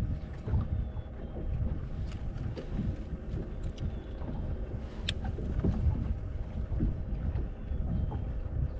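Wind buffeting the microphone aboard a bass boat, a fluttering low rumble, with a faint steady hum underneath and a sharp click about five seconds in.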